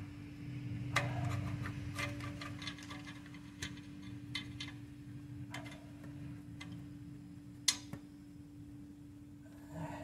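Irregular sharp metallic clicks of a small ratchet turned in short strokes, running the transmission oil pan bolts in snug, with a steady hum underneath.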